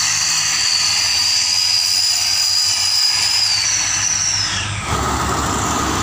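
Engine of a small loaded pickup truck running as it drives off, with a steady high whine that falls away after about four seconds. About five seconds in, the deep rumble of a heavy tanker truck passing close takes over.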